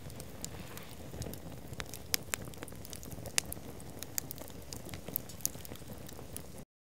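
Cedar-wood bonfire crackling: a steady low hiss with irregular sharp pops, cutting off abruptly near the end.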